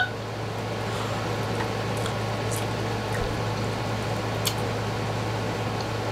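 Steady low hum and hiss of room tone, with a few faint short clicks.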